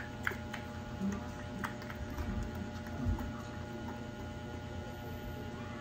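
Steady low electrical hum with a few faint clicks in the first couple of seconds and a soft knock about three seconds in.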